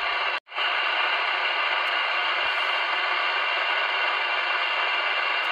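Steady hiss of FM receiver noise from a CB radio's speaker on the 11 m band, the sign that a distant skip station has faded out into the noise. The hiss drops out briefly about half a second in, then resumes.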